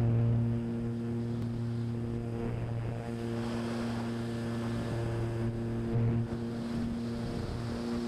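Fixed-wing FPV model plane's motor and propeller running at a steady pitch, heard close from the onboard camera in climbing flight, with air rushing past.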